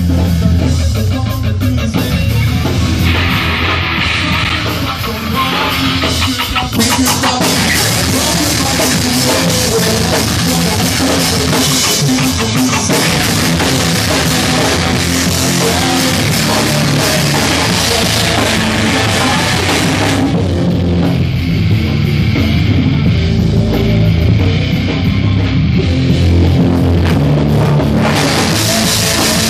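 Live rock band playing loudly: electric guitar, bass guitar and drum kit together, in a dense, steady wall of sound.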